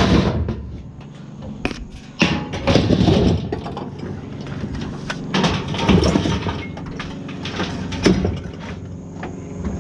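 Knocks and clattering of items being handled and moved, in several loud spells, over a steady low hum.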